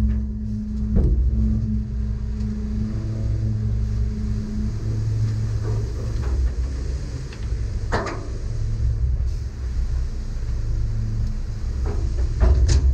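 Dump truck's engine running steadily while its bed is raised and a load of wet mud slides out the back, with a few sharp knocks, the loudest about eight seconds in.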